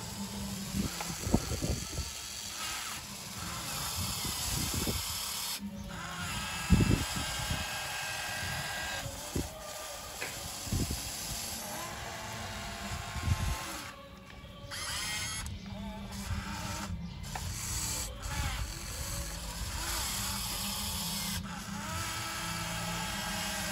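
Electric hydraulic pump of a radio-controlled scale-model CAT 336D excavator whining, its pitch shifting as the boom and bucket move. A few sharp knocks come as the bucket works the wet soil.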